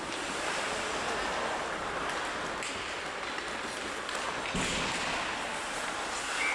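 Steady noisy din of a game in progress, with a few scattered light knocks.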